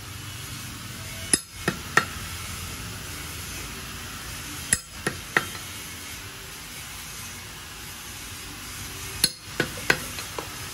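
Sharp knocks in clusters of three or so, repeating about every three and a half to four seconds, over a steady background hiss.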